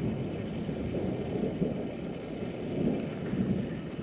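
Low rolling rumble of thunder from a thunderstorm, swelling and fading a couple of times.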